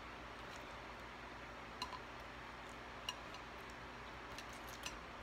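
Faint, scattered soft clicks and crinkles from hands peeling the paper wrapper off a burrito, over a steady low background hiss.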